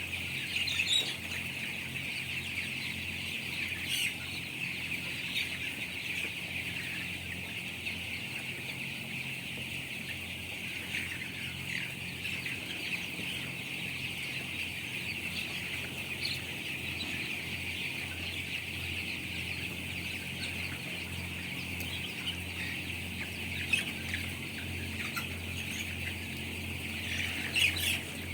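A large flock of young chickens in a poultry house, many birds cheeping and clucking at once in a steady chorus, over a steady low hum. A few brief, louder sharp sounds stand out about a second in and near the end.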